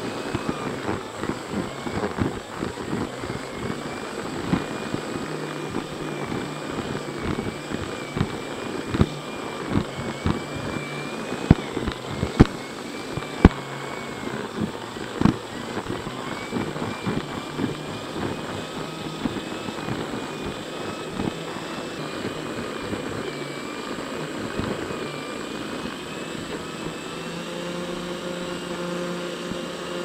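Vacuum cleaner running with a wavering motor whine as it is worked over dirty carpeted stair treads, the nozzle knocking and clicking against the steps many times. Near the end the clicks stop and it settles into a steadier, lower hum.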